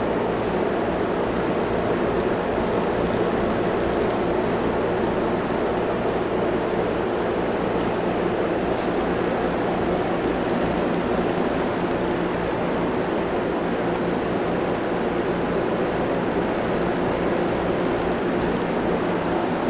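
A steady mechanical drone that runs without a break and without changing pitch or loudness.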